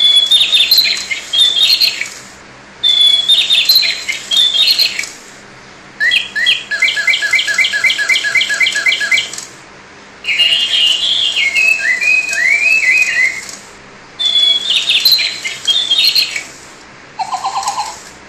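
Robotic toy songbird playing recorded birdsong through its small speaker: phrases of chirps of two to three seconds each with short pauses between. The same phrase comes back more than once, and about six seconds in there is a fast run of about four notes a second.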